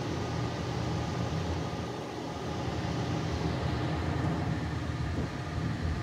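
Gas furnace fan motor running steadily: a low hum with an airy rush, while the burners stay unlit.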